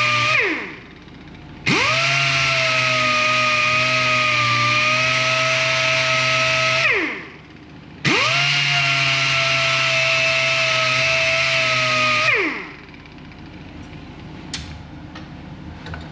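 Handheld electric power tool sanding the end of a stainless steel bolt: the motor runs with a steady whine, winds down and is started again twice, and spins down for the last time about twelve seconds in. A few light clicks follow.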